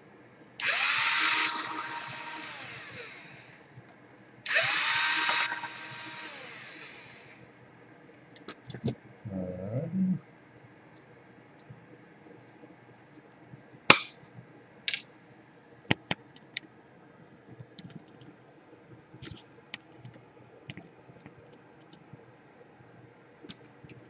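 Black & Decker cordless drill-driver backing screws out of a laptop's bottom panel: two runs of about three seconds each, each winding up and then down, a few seconds apart. Scattered small clicks and taps follow through the second half, with one sharp click about halfway.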